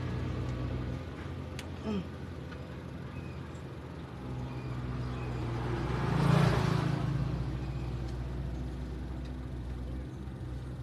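Motor vehicle engine running steadily with a low hum, swelling louder and fading again about six seconds in.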